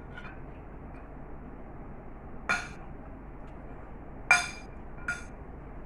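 Metal spoon clinking against a glass serving bowl three times, each clink ringing briefly, the second the loudest.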